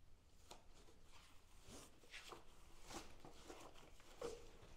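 Faint rustling of paper pages being turned by hand in a ring binder, several soft page flaps, a slightly louder one near the end.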